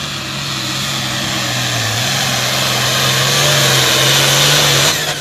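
Hot farm class diesel pulling tractor, an International Harvester, at full throttle dragging the weight sled. It makes a loud, steady engine note under a heavy hiss of exhaust and turbo, growing louder until it cuts off abruptly near the end.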